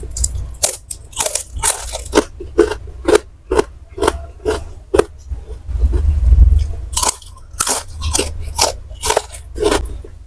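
Close-up chewing of crunchy fried snacks (gorengan), a run of crisp crunches about two a second.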